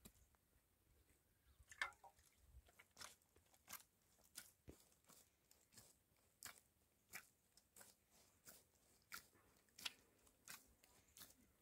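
Faint footsteps crunching on the ground at an even walking pace, about three steps every two seconds, with a sharper click a couple of seconds in.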